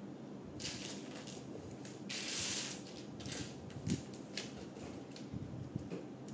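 Plastic LEGO pieces rattling and clicking as a hand rummages through them. There is a longer rattle a little after two seconds in, then a few sharp clicks.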